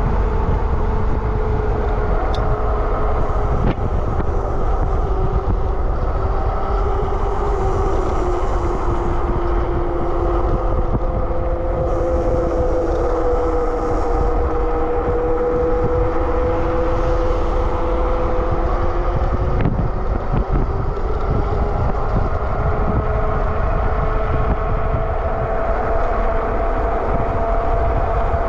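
Super73 RX electric bike riding at speed: its rear hub motor gives a steady whine whose pitch drifts slowly up and down with speed, over a heavy low rumble of wind and road.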